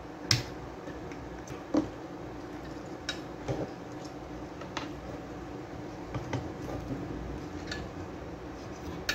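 Sparse sharp clicks and light taps from desoldering and working loose a TDA2050 amplifier chip on a circuit board, the loudest click just after the start, over a steady low hum.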